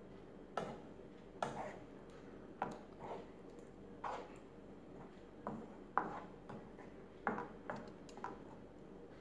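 Wooden spoon tapping and scraping against a non-stick frying pan while stirring chicken in a cream sauce: irregular clicks, roughly one a second, over a faint steady background.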